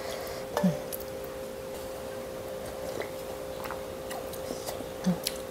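Eating noodle soup with chopsticks from a stainless-steel bowl: a few light clicks of the chopsticks against the bowl and soft eating sounds, over a steady hum.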